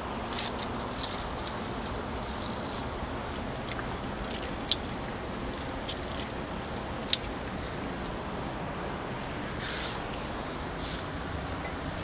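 Steady rushing of a mountain waterfall, with a handful of sharp metallic clinks from via ferrata carabiners on the steel safety cable and rungs.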